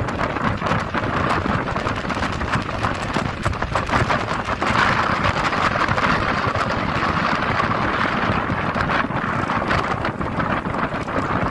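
Wind rushing and buffeting at the open side window of a moving microbus, over its road and engine noise: a steady loud rush with constant rapid flutter.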